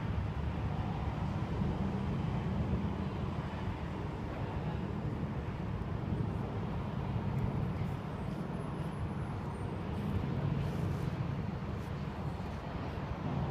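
Steady low background rumble, with a few faint clicks in the second half.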